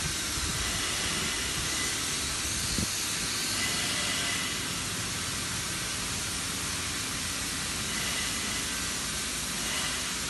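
A steady rushing hiss of air.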